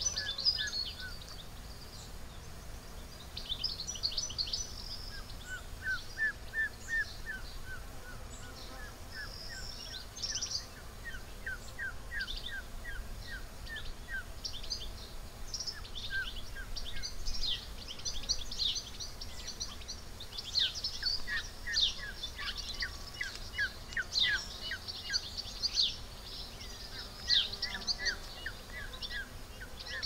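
Countryside dawn chorus: several birds singing and chirping, with repeated runs of quick short notes and sharper high chirps, over a low steady background rumble.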